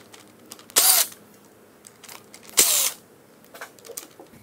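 Cordless drill/driver backing out the 10 mm coil-pack bolts: two short spins about two seconds apart, the motor's whine rising and falling with each, with faint clicks of the bolts being handled in between.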